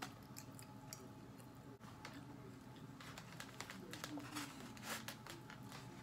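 Faint food-handling sounds: a fork scraping and tapping in a foam takeout container, then hands pulling food apart over it. Small clicks and crackles throughout, busiest a few seconds in.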